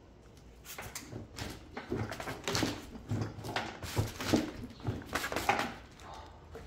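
A bare Ford 6.4 L Powerstroke V8 diesel engine block being rocked and tipped over on a wooden pallet by hand. Irregular knocks, creaks and scrapes against the wood, mixed with strained grunting from the effort.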